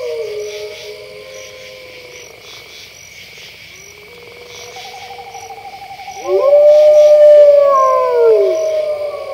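Wolves howling over a steady chorus of crickets: one long howl slides down and fades at the start, then several wolves howl together, louder and overlapping, from about six seconds in.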